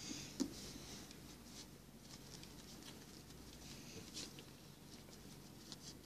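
Faint rustling and light scratching of cloth and thread being handled by fingers at a sewing machine, with a few small clicks, the sharpest about half a second in and more around four seconds in.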